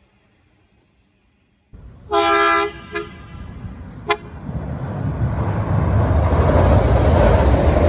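A train horn gives one short blast about two seconds in, then two brief toots. After that comes the rumble of an approaching train, growing steadily louder.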